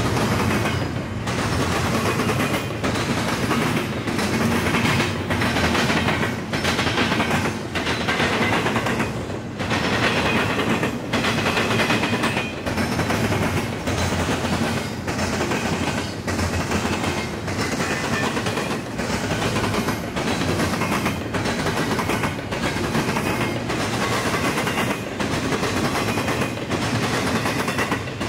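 Double-stack intermodal freight train passing at speed, its steel wheels clacking over the track in a steady repeating rhythm.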